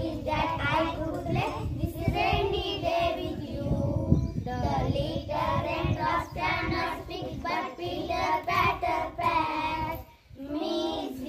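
Young schoolgirls singing a children's action rhyme together, with a brief pause about ten seconds in.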